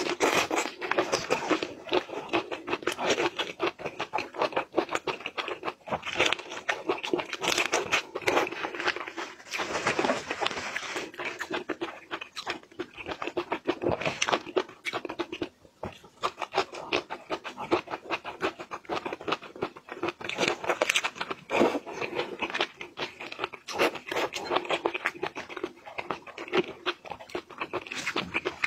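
Close-miked eating sounds of shrimp coated in fish roe: wet chewing, sucking and smacking, with a dense run of small crackling clicks. The sounds ease off briefly a little past halfway.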